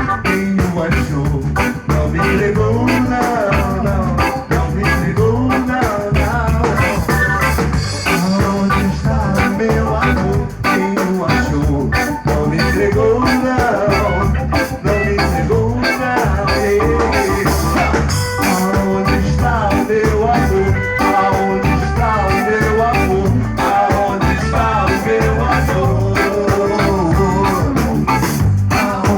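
A reggae band playing, with bass, drum kit and guitar in a steady offbeat groove and melodic lines over it.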